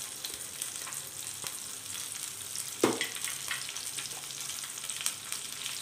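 Curry leaves, green chillies, cashews and cumin sizzling and crackling in hot ghee in a pan: a tempering for pongal. There is one short knock nearly three seconds in.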